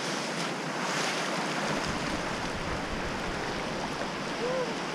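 Pacific Ocean surf washing in around the waders' feet: a steady rushing hiss of breaking waves.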